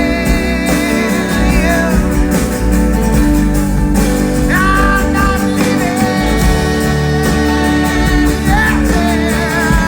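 Live band music with a steady low beat and sustained chords under a sliding melody line that wavers in pitch.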